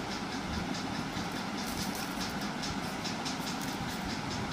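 Steady background hum with faint, light ticks and rustles of dry broom sticks being lifted and handled.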